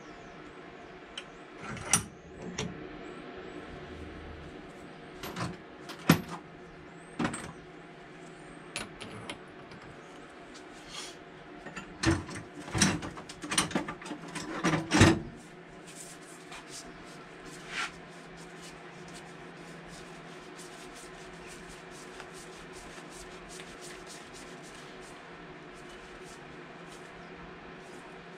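Sharp metallic clinks and knocks as diesel injector parts and hand tools are handled at a steel bench vise. The knocks are scattered through the first half and bunched most densely about twelve to fifteen seconds in, then stop, leaving a steady low workshop hum.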